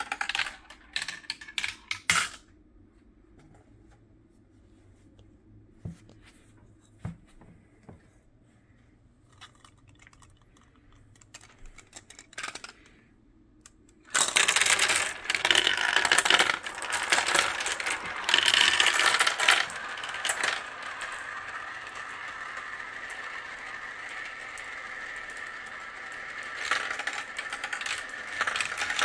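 Glass marbles clattering through a clear-plastic marble run. A few sharp clacks come in the first two seconds, then a long quiet stretch with only occasional faint clicks. About halfway, a cupful of marbles is poured into the top funnel, bringing a sudden, loud, dense clatter that eases after several seconds into a steady rattle of marbles rolling down the plastic tubes.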